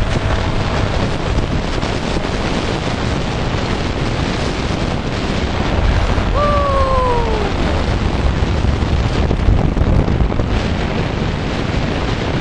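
Wind buffeting the microphone, over the steady rumble of engine and road noise from riding along behind a small motor scooter. A brief falling tone sounds a little past halfway.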